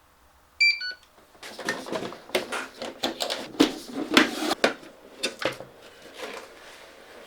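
A short run of electronic beeps from the RC car's radio gear as it powers up, then about four seconds of busy clicking and rattling from handling plastic parts.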